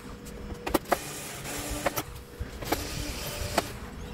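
A screwdriver working the screws of a TV power board: a handful of short, sharp clicks, roughly one a second, over a faint steady hum.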